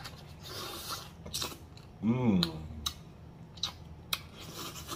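A person chewing turkey neck meat, with wet lip smacks and sucking sounds. A hummed, appreciative "mmm" comes about two seconds in.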